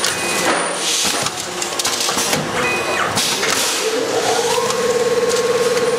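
Four-lane automatic packing machine running, with rapid mechanical clatter and clicks from its moving jaw assembly. About four seconds in, a rising whine settles into a steady buzzing hum.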